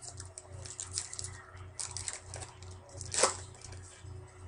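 Glossy Topps Chrome trading cards being flipped and slid against one another in the hand: a quick string of scratchy rustles, with a sharper snap a little after three seconds in.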